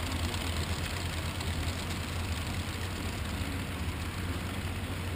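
HO scale model freight train of coal hopper cars rolling past, a steady low rumble and hum of the wheels on the rails.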